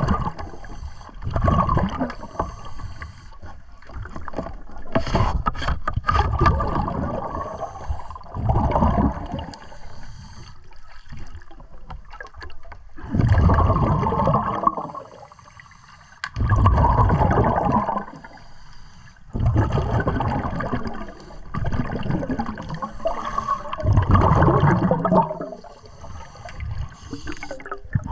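Pneumatic air tool running underwater, its exhaust air bubbling out in repeated bursts of one to two seconds with short pauses between.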